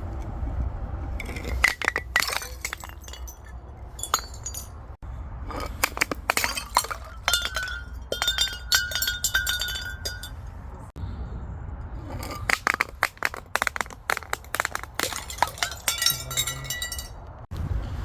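Glass bottles breaking and being crushed: dense runs of sharp cracks and crunches, with shards clinking and ringing, coming in several bursts separated by short pauses.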